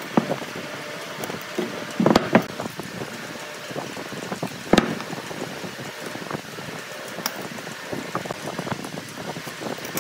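Handling noise of marking out on a workbench: a steel square and pine boards set down and shifted, giving a few sharp knocks, the loudest about halfway through, with light pencil scratching in between over a steady background hiss.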